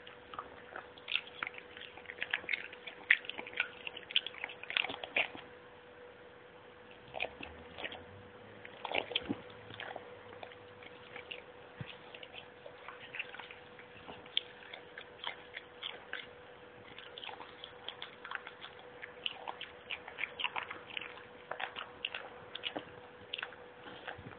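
A dachshund chewing and biting kiwi fruit skin: many short, irregular clicks of jaws and teeth, busiest in the first five seconds and again in the last third. A faint steady hum runs underneath.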